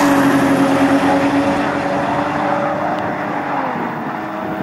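Engines of two Toyota Mark II–type drag cars running hard on their run down the strip: a steady high engine note that drops in pitch near the end.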